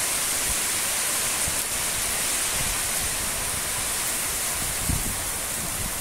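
Heavy rain falling steadily, a dense even hiss, with a brief low buffet of wind on the phone's microphone about five seconds in.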